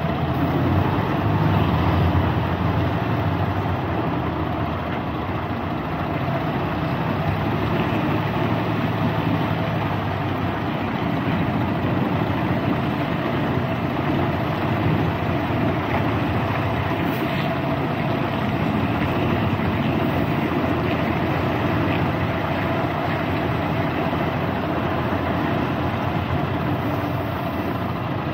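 Tractor-trailer's diesel engine running at low speed while the rig is backed toward a loading dock, heard from the cab with the driver's window open. The low rumble is heavier for the first ten seconds or so, then steadier.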